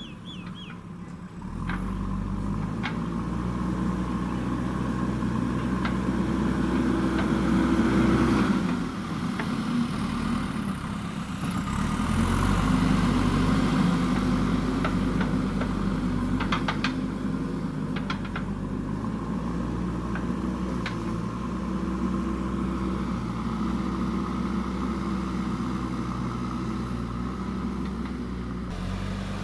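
JCB backhoe loader's diesel engine running under working load, its revs rising and falling several times, with a few sharp clicks about halfway through.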